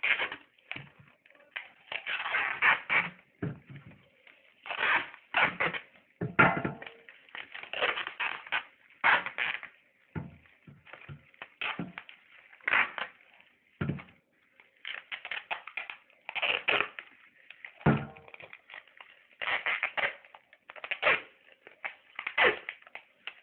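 Adhesive tape (Sellotape) being pulled off its roll in repeated rasping strips and wound tightly around fish sealed in a plastic bag, with some crinkling of the plastic.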